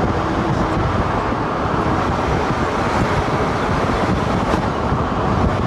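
Steady road noise of a car driving, tyres and air rushing, heard from inside the car.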